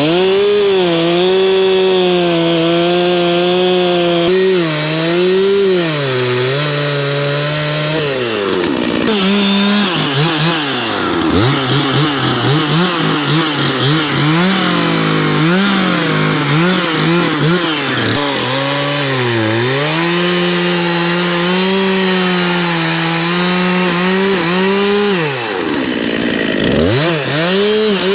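Two-stroke chainsaw running at high revs while cutting into a tree. The engine pitch repeatedly sags and recovers under load, with several brief drops in revs, the deepest near the end.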